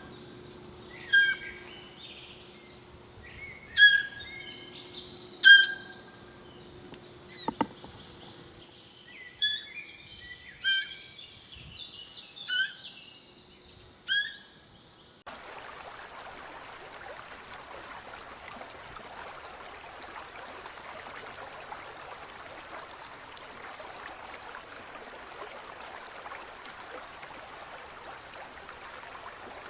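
A bird calling, about eight short chirping calls spaced a second or two apart over a faint steady hum. About halfway through, the calls stop and a steady, even hiss begins abruptly.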